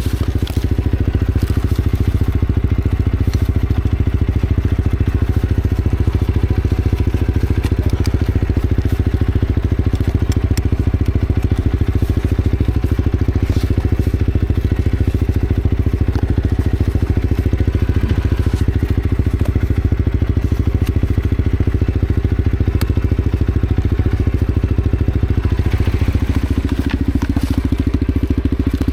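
Motorcycle engine running steadily, a continuous low rumble of rapid firing pulses.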